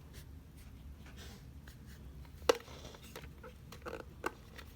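Plastic clicks and handling noises as the mini vacuum cleaner is opened to reach its dust container. One sharp click about two and a half seconds in is the loudest, with a few lighter clicks near the end.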